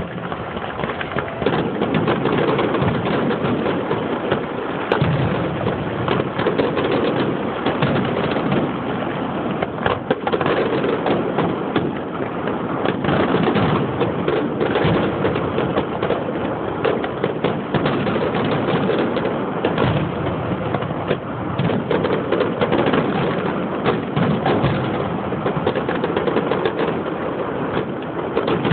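Aerial fireworks display: shells bursting in a dense, unbroken run of bangs and crackles.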